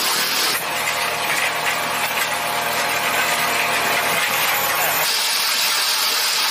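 Soil-block press machine running with a steady mechanical hum; about five seconds in it gives way to a steady hiss.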